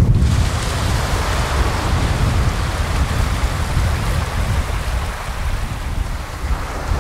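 Small sea waves breaking and washing up a sandy shore, a rushing hiss that swells over the first few seconds and eases near the end, over a low rumble of wind on the microphone.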